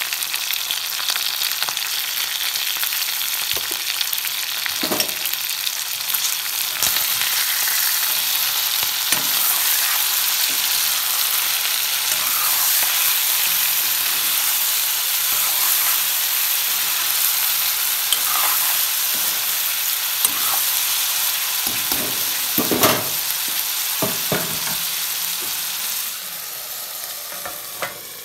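Frogs frying in oil in a pan, sizzling steadily while being stirred, with a few sharp knocks of the spoon against the pan. The sizzling turns quieter and muffled near the end as a plate is set over the pan as a lid.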